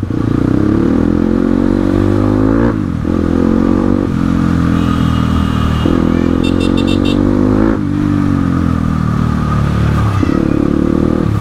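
Crossfire RM250 dirt bike's single-cylinder engine pulling at riding speed, its pitch climbing and falling back several times as the throttle is opened and eased or the gears change.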